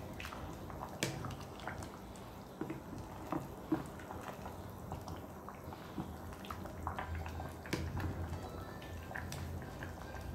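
Sotanghon noodles being stirred in a pot of cooking liquid: wet stirring and bubbling with scattered light clicks of the utensil against the pot. A low hum joins from about six seconds in.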